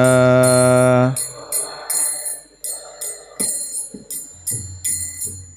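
A man's sung note is held and breaks off about a second in. Small hand cymbals (kartals) then keep a steady beat of about three bright strokes a second, with a few soft low thumps under them.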